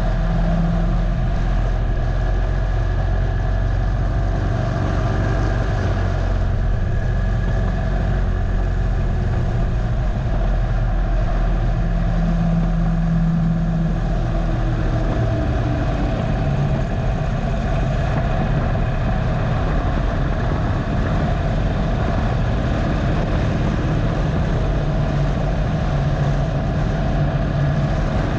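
Harley-Davidson Dyna Low Rider's air-cooled V-twin engine running steadily while riding at moderate track speed, heard close up from the handlebars. Its note shifts slightly in pitch with the throttle.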